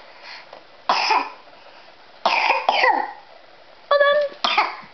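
A person coughing in four short bursts; the third is a brief high-pitched voiced sound.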